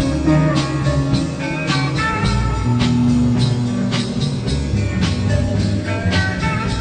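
Music with drums, bass and guitar, without vocals.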